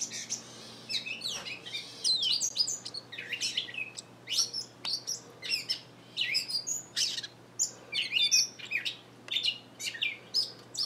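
Catbird calling in a rapid, jumbled run of varied chirps, squeaks and quick whistled sweeps with hardly a pause. The uploader thinks it is a young catbird practising its calls.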